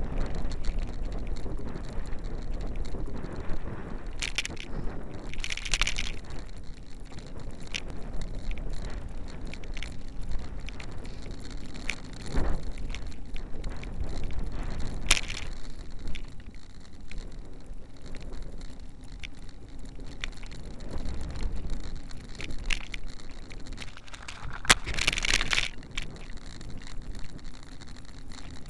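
Road and wind noise from a slowly moving vehicle, picked up by a loosely mounted keychain camera, with frequent clicks and rattles from the camera mount. Two short hissing bursts come about six seconds in and again near the end.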